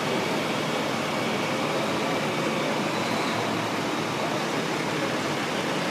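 Fire trucks' engines running steadily, an even mechanical noise with a faint high steady tone over it.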